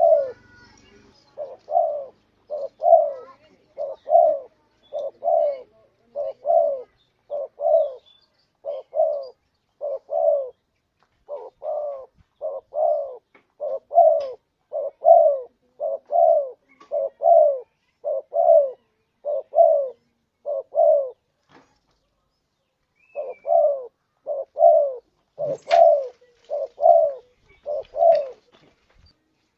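Spotted dove cooing over and over: a long run of short coos, about one to two a second, broken by a pause of a couple of seconds just past the middle. This is the kind of call used as a lure to make a rival dove answer.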